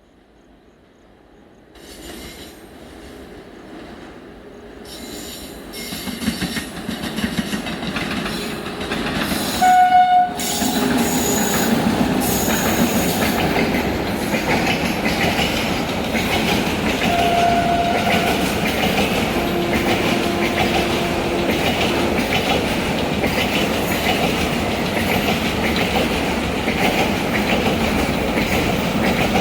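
A car-carrier freight train rolling slowly past, its noise building from quiet over the first few seconds into steady wheel clatter with brief wheel squeals. A short train horn blast sounds about ten seconds in.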